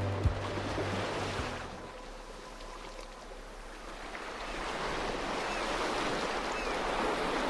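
Ocean surf washing onto a beach, a steady rush of breaking waves that dips about two to four seconds in and swells again toward the end. The tail of a music track fades out in the first second or two.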